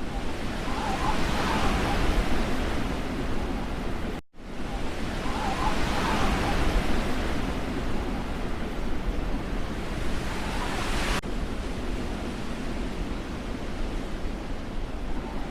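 Rushing wind noise that swells and eases in gusts, breaking off for a moment about four seconds in.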